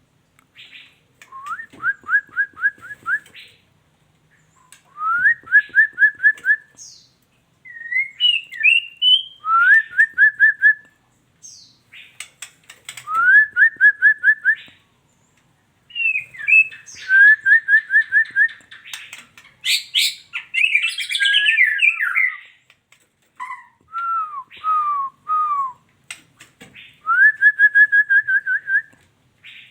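Female white-rumped shama calling: short phrases of about six quick rising whistled notes, repeated every few seconds, with a louder, more varied run of notes about two-thirds of the way through.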